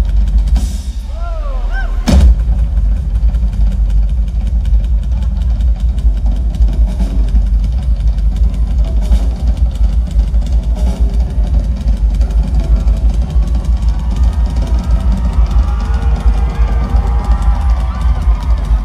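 Live band playing a song with a full drum kit driving a steady beat and heavy bass. A sharp, loud hit sounds about two seconds in.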